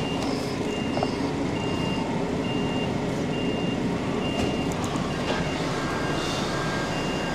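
Vehicle reversing alarm beeping at an even pace, roughly one short beep every second, over the steady low rumble of an idling lorry engine.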